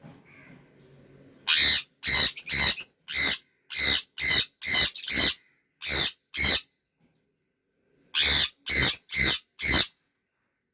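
Parrot giving short, loud, harsh squawks in quick succession, about ten of them, a pause of over a second, then four more.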